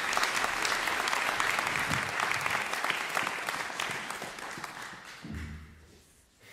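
Applause from a small audience, individual claps audible, dying away about five seconds in, with a soft low bump near the end.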